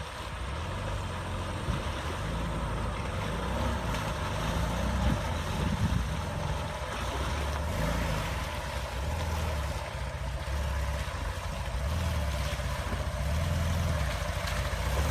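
Off-road vehicle's engine running and revving up and down in pulses as it drives through a river, over a steady rush of water.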